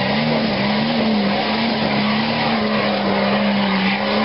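Modified Jeep Wrangler's engine held at high, steady revs, its pitch wavering slightly, as the Jeep climbs a steep dirt hill under load.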